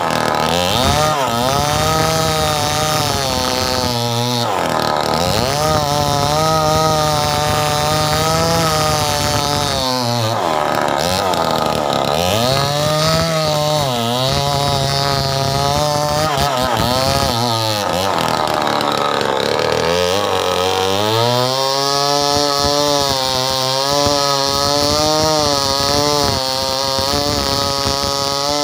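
Stihl 070 two-stroke chainsaw at high revs cutting into a mango tree's trunk. Its engine note sags under load and picks back up several times, with its longest, deepest dip about two-thirds of the way through.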